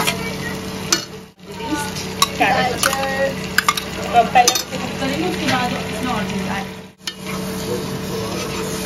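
Chopped capsicum and tomato sizzling in a hot non-stick kadhai as they are stirred with a metal spoon, with sharp clinks and scrapes of the spoon against the plate and pan.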